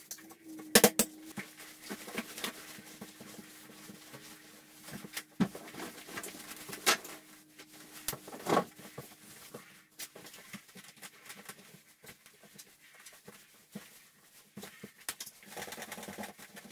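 Scattered clicks, knocks and scrapes of floor-cleaning work with a scraper and mop on a tiled bathroom floor, with a faint steady hum that fades out about two-thirds of the way through.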